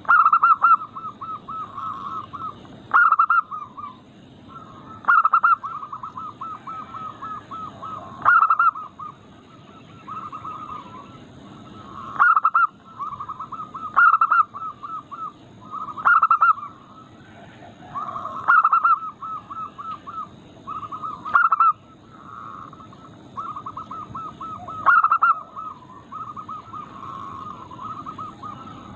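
Zebra doves (perkutut) cooing in full song: each phrase opens with a loud note and runs on in a fast train of short rolling coos, the phrases following one another about every two seconds.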